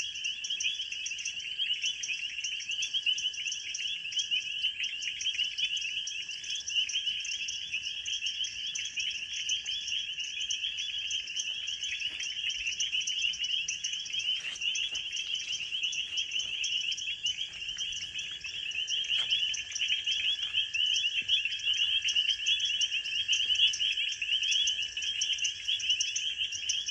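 Night chorus of insects, crickets and cicada-like callers together: a steady, shrill, rapidly pulsing trill with one steady high whine underneath. It never pauses.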